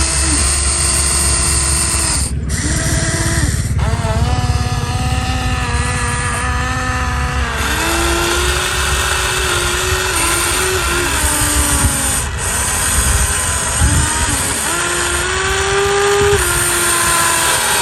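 Small electric motors of a radio-controlled model excavator whining as it works. Their pitch steps up and down repeatedly over a steady low hum.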